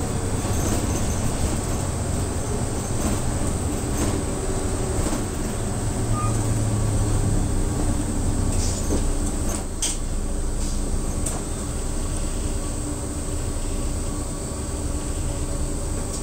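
Cabin noise of a route bus on the move: a steady engine and road hum, with a few light clicks and rattles from the interior.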